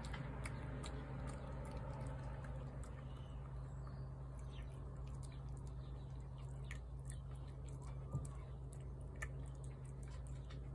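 A tabby cat eating wet food from a plate: soft chewing and smacking with many small scattered clicks, over a steady low hum.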